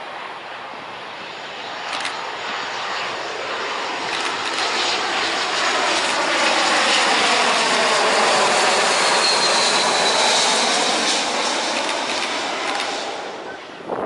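Airbus A320 jet airliner on landing approach passing low overhead. The jet noise builds over several seconds and is loudest midway, with a faint high whine falling slightly in pitch, then fades away.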